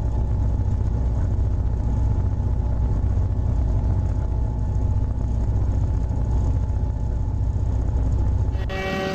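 Railway snow plow's heavy engine running steadily under load as it plows snow off the track: a deep, even rumble with a faint steady whine above it. Near the end, a train horn starts sounding.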